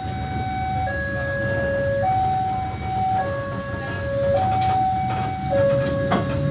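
Railway level-crossing warning alarm sounding its two-tone signal, alternating high and low with each tone held for a little over a second, warning that a train is coming while the barrier is down. A low rumble runs underneath, with a single sharp knock near the end.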